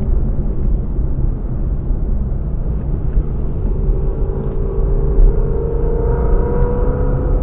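Ford Mustang driving along a road: steady engine and road rumble, with the engine note rising about four seconds in as it speeds up.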